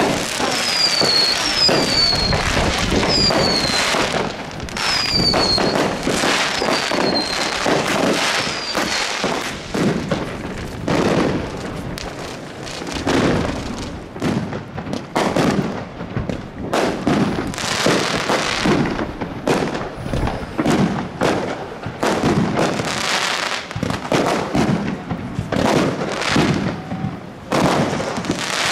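Aerial fireworks going off in a dense, continuous run of bangs and crackling from many shells and rockets. About six short falling whistles come in the first several seconds.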